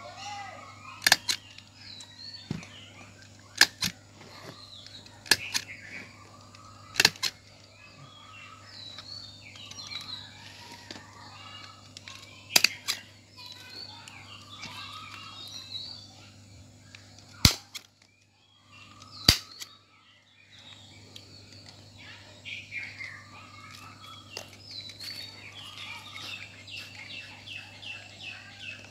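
Hand stapler driving staples through woven coconut-leaf strips: sharp clicks, mostly in quick pairs, about seven strokes spaced a couple of seconds apart with a longer gap in the middle. Birds chirp steadily in the background.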